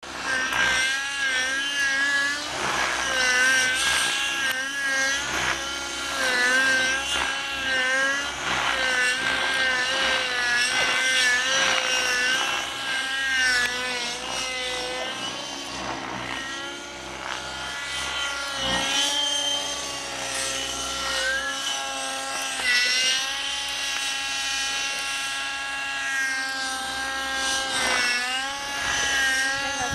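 Vision 50 RC helicopter's nitro engine running in flight, with its pitch rising and falling as the throttle and rotor load change, steadier in the second half.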